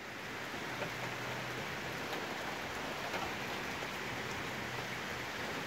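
Heavy rain falling steadily, with a few sharp drop hits standing out.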